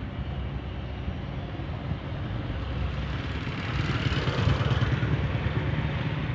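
Low, steady rumble of wind buffeting the phone's microphone, swelling louder for a couple of seconds around the middle.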